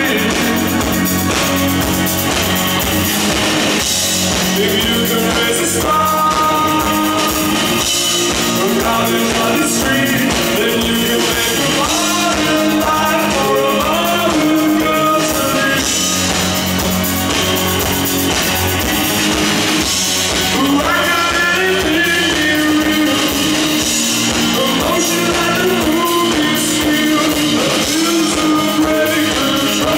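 Live rock band playing: electric guitar, bass guitar and drum kit, with a man singing lead.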